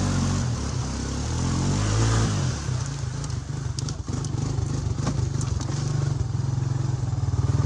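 ATV engine running under way, the revs falling about two seconds in and then holding a steady, pulsing run that climbs slightly near the end, with scattered light clicks and clatter.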